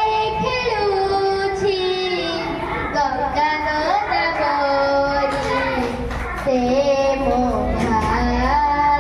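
A child singing a song solo, drawing out long held notes that slide from one pitch to the next.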